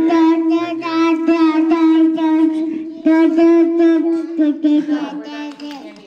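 Toddler singing into a toy microphone, holding long notes on one steady pitch, in two long phrases with a short break about three seconds in.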